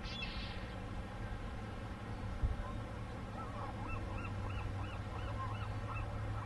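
A flock of geese honking, a quick series of short arched calls about three a second, over a steady low rumble. One brief higher-pitched call comes right at the start.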